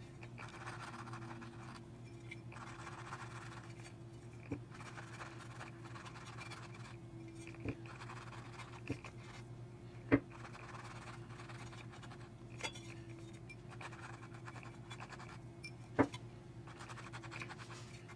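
Cotton swab scrubbing and scratching along the rim of a speaker cone and frame to clear old foam and glue residue, in soft patches of rubbing with a few sharp clicks and taps, over a steady hum.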